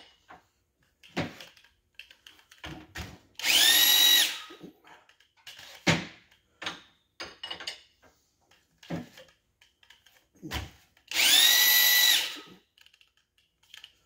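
Handheld electric drill spinning a cone-shaped chamfer cutter against the bore edge of a steel 283 Chevy connecting rod, breaking the edge. It runs twice, about three seconds in and again about eleven seconds in, for about a second and a half each time, with the whine rising as it spins up. Between the runs come light clinks and knocks as the rod is handled in the vise.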